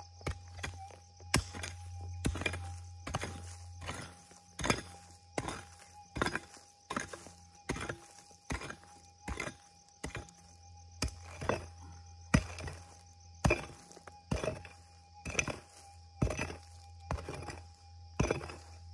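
Prospecting pick striking and scraping into hard gravelly soil, digging with a steady rhythm of about one blow a second.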